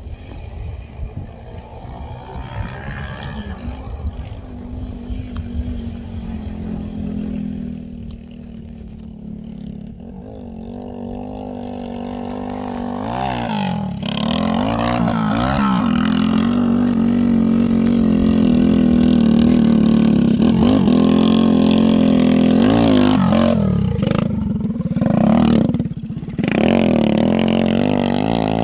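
Junak 902 motorcycle engine running under way: quieter and uneven for the first dozen seconds, then louder and steady as it pulls hard, with brief dips and pitch changes several times, as at gear changes.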